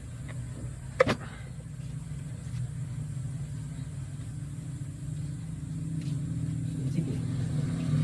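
Car engine idling steadily, with one sharp metallic knock about a second in.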